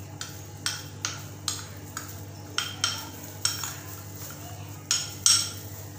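A spoon repeatedly knocking and clinking against a mixing bowl while ingredients are handled: about a dozen sharp clinks at uneven intervals, the loudest near the end.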